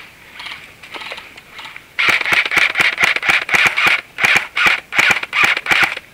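Airsoft guns firing in short rapid bursts of clicks, about half a dozen bursts back to back starting about two seconds in.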